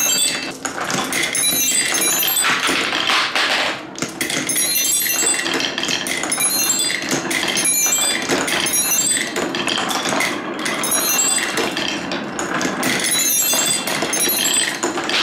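Glass marbles rolling and clacking along wooden marble-run tracks: a continuous rolling rumble with dense clicks as they drop through the blocks and rock over the humps of a wavy wooden slope.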